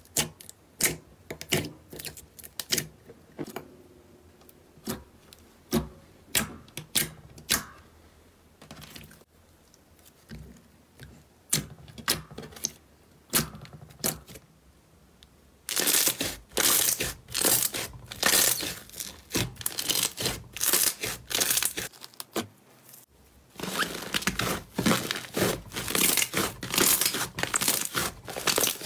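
Hands squishing and pressing slime, making sticky pops and crackles. These are scattered at first, then turn into dense, continuous crackling over the second half, with a brief break.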